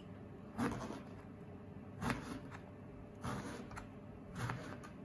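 Kitchen knife cutting a halved eggplant into wedges, each stroke going through the flesh and knocking on a plastic cutting board: four separate cuts, roughly one every second and a half.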